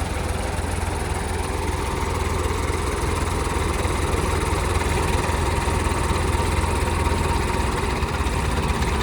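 Diesel tractor engine running steadily, a continuous low engine sound with no breaks.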